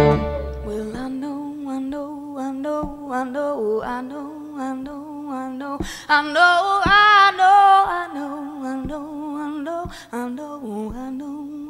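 A woman's voice singing unaccompanied in long held notes with vibrato. It swells louder and higher about six seconds in, and there are a few soft taps behind it.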